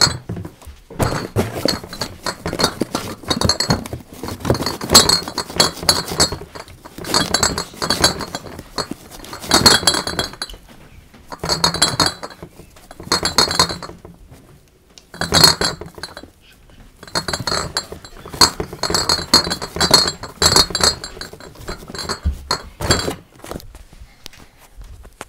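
Beer bottles clinking and rattling against each other inside boxes as the boxes are shifted, in repeated bouts of a second or a few seconds with short pauses between.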